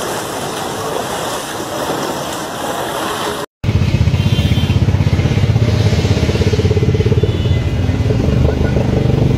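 Floodwater rushing and splashing as an even hiss. After a sudden cut about three and a half seconds in, a vehicle engine runs low with a fast, even pulse.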